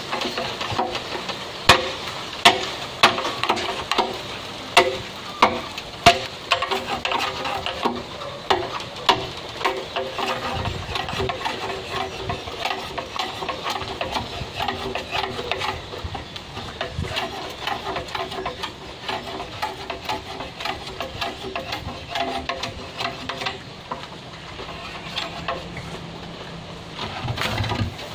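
A blade chopping and scraping at the nodes of a thick green bamboo pole. It starts with a run of sharp, evenly spaced knocks, then goes on as quicker, lighter scraping and clicking.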